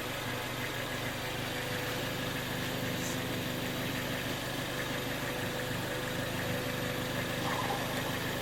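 Ford Focus ST idling: a steady, even engine hum with a constant faint whine above it.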